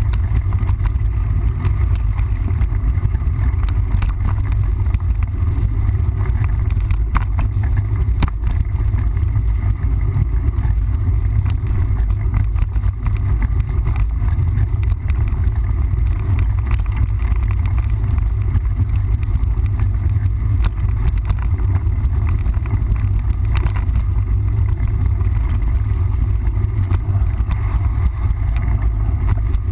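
Steady low rumble of wind buffeting the microphone during a mountain-bike ride, with scattered clicks and rattles from the bike over the trail.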